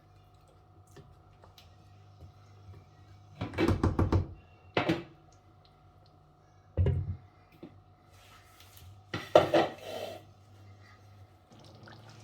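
Cooking pot and metal utensils clattering in a few short bursts of knocks and scrapes. The loudest bursts come about three to four seconds in and again about nine seconds in.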